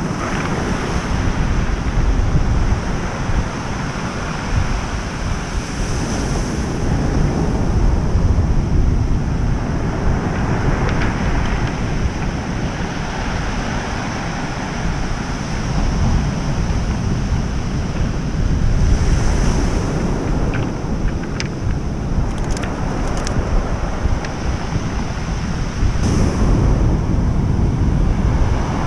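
Ocean surf breaking and washing up a pebble beach, swelling every several seconds, with wind buffeting the microphone underneath.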